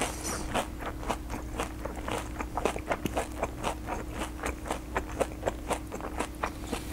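Close-miked chewing of a batter-fried, syrup-soaked rasgulla, mouth closed: a steady run of short crisp, wet chewing clicks, about four or five a second.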